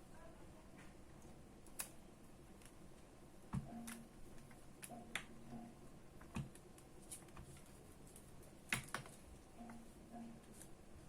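Faint, irregular clicks and taps of small hard objects being handled, a dozen or so, with a few brief low hums between them.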